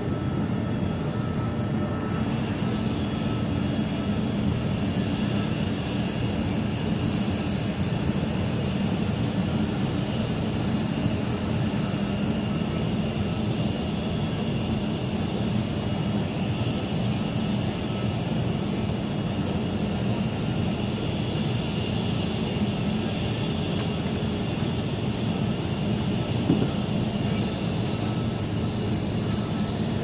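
Power plant running: a steady industrial roar with a few faint, constant high whines over it.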